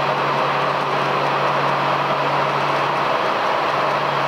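Airbus A320-211's twin CFM56 turbofan engines running at idle thrust as the airliner taxis: a steady rushing noise with a low steady hum underneath.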